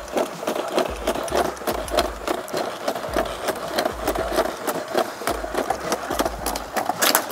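Deep Robotics X30 quadruped robot walking down stairs: a quick, uneven run of foot taps on the steps over the steady whir of its leg actuators.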